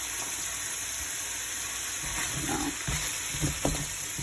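Frozen stir-fry vegetables sizzling in hot olive oil in a pan, a steady hiss. From about two seconds in come a few knocks and rustles in the pan.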